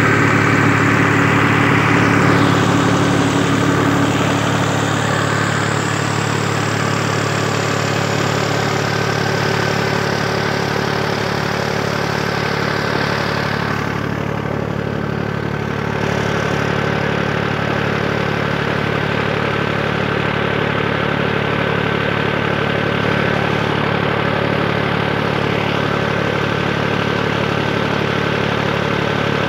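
Massey Ferguson 260 tractor's three-cylinder diesel engine running steadily at a tubewell, a constant low drone that is a little louder in the first few seconds.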